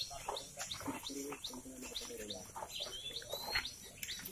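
Birds chirping: many short, quick chirps overlapping throughout.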